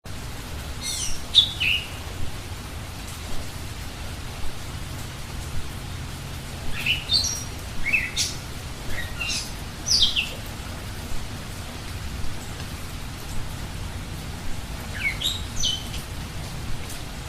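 Steady rain hiss with a low rumble underneath, and a songbird calling in short, high notes that sweep downward. The bird calls in three bouts: about a second in, again between about seven and ten seconds, and once more near the end.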